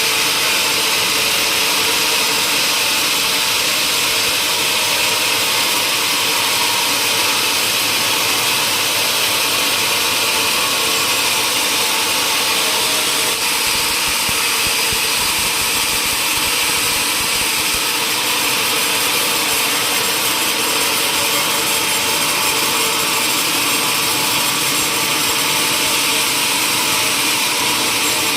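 Power saw cutting steadily through wood, a loud, unbroken running and cutting noise with no pauses.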